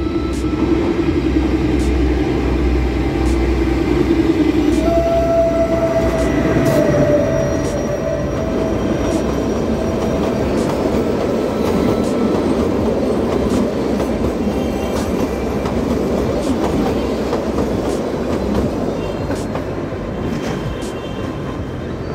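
Kalka–Shimla narrow-gauge train coming out of a tunnel and passing close by: a deep locomotive engine rumble for the first few seconds, then the coaches rolling past with wheels clicking over the rail joints. A steady whine runs from about five to ten seconds in.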